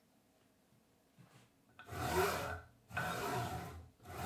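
Linear bearing blocks of a circular saw slide carriage sliding back and forth along stainless steel pipe shafts, with a rubbing rasp. The strokes start about two seconds in, each about a second long.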